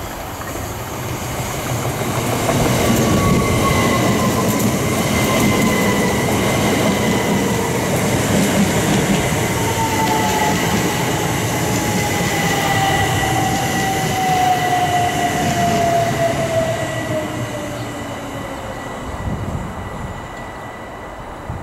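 Southeastern Class 375 electric multiple unit running along the platform, getting louder about two seconds in. A whine falls slowly in pitch over many seconds as the train slows, over the rumble of the wheels on the rails, with a steady high squeal above it.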